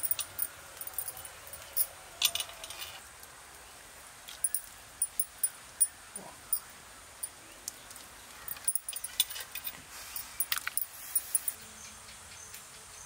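Irregular crackling and sharp clicks from cooking at a wood-fired hearth with clay pots, scattered unevenly throughout.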